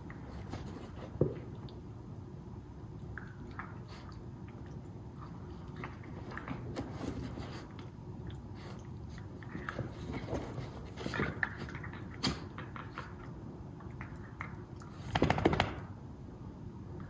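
Two miniature schnauzers play-wrestling: scuffling on a rug, mouthing and snapping their jaws at each other, with scattered short clicks and a louder burst of noise about fifteen seconds in.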